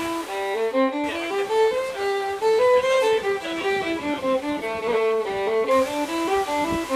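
Solo fiddle playing a fast tune in quick runs of short notes.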